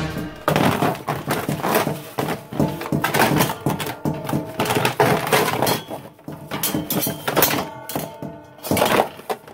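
Disposable aluminium foil roasting pan crinkling and knocking against a stainless steel step-lid trash can as food is tipped and scraped into the bin: an irregular run of crackles and thunks.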